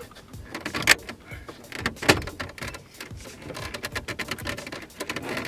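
Plastic center dash trim of a 2004 Ford Mustang being pried off by hand, its clips clicking and knocking as they come loose. There are sharp snaps about a second and two seconds in, and a run of quick clicks and rattles near the end.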